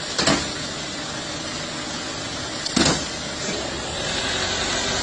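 A steady rushing noise broken by two short, sharp knocks about two and a half seconds apart.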